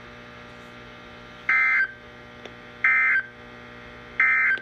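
NOAA Weather Radio SAME end-of-message data code: three short, loud warbling digital bursts about a second and a half apart, over a steady radio hum. They mark the end of the Severe Thunderstorm Warning alert.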